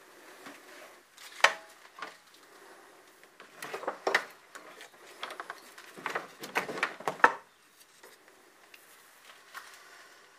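Scattered clicks, knocks and light rattles of cables and fittings being handled at an electrical meter and fuse panel. A sharp click comes about a second and a half in, and there are clusters of handling noise around four seconds and around six to seven seconds.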